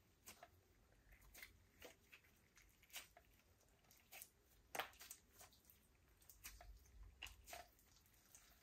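Clear glitter slime mixed with lipstick being squeezed and folded by hand: faint, irregular wet squishing clicks, the loudest about five seconds in.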